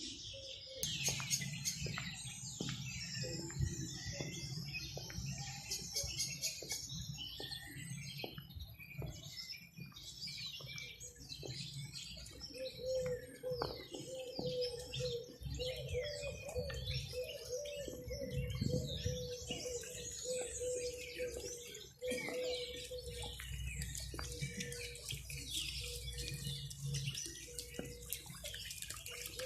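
Many small birds chirping and twittering at once, a dense and continuous chorus of overlapping short calls, over a low background rumble.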